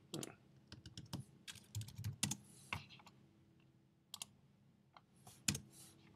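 Computer keyboard keys clicking as a short command is typed and entered: a quick run of keystrokes over the first three seconds, then a couple more just after four seconds and a sharper one around five and a half seconds.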